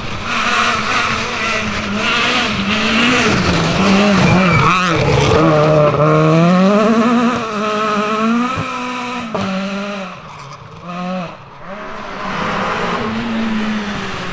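Peugeot 208 rally car's engine revving hard as it passes and pulls away, its pitch climbing and dropping with each gear change. Near the end a second rally car, a Renault Clio, approaches with its engine revving up.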